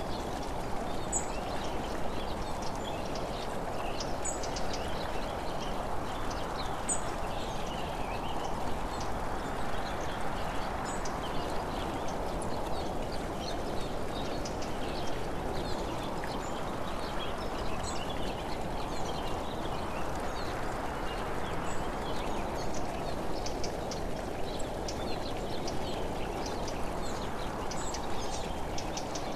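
Steady wind and road noise on a camera riding along an open road, slowly swelling and easing, with scattered short high chirps and ticks throughout.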